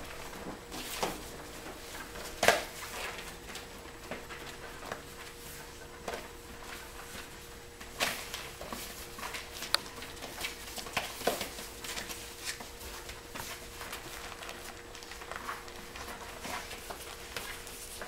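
Five-week-old Pointer puppies playing and wrestling over plush toys: scattered patter and scuffling of small paws and toys on the mat and paper-covered floor, with a few sharper knocks, the loudest a little over two seconds in. A faint steady hum runs underneath.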